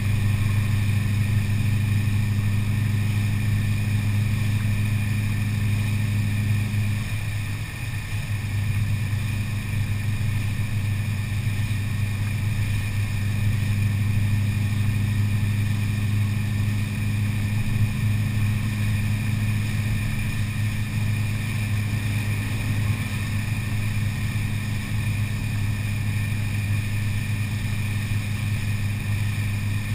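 2001 BMW E39 M5's V8 heard through a muffler-delete exhaust with a Tubi X-pipe, cruising with a steady low drone, recorded close to the tailpipes. The note dips briefly about seven seconds in and then settles back, over a steady hiss of wet-road spray.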